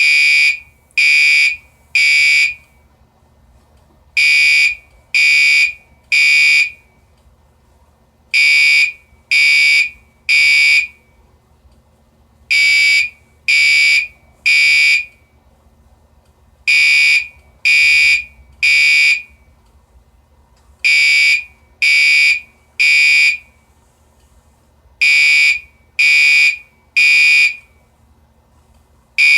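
Fire alarm being tested, sounding its high-pitched beep in the three-beep evacuation pattern: three half-second beeps about a second apart, then a short pause, repeating about every four seconds.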